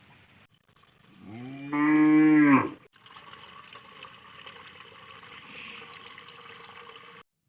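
A cow moos once, a single loud call about a second and a half long that rises at the start and then holds. After it, water runs steadily from a tap into a vessel for about four seconds.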